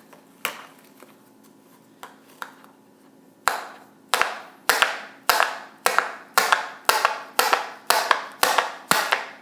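Repeated sharp knocks of a fidget spinner held in the fist being struck against an object on a hard surface: a few scattered hits, then from a few seconds in a steady run of about two blows a second, each with a short ring.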